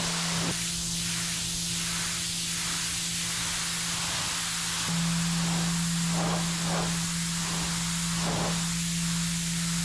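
RYOBI 1800 PSI electric pressure washer running while spraying concrete: a steady motor-pump hum under a dense hiss of water spray. The hum grows louder about five seconds in.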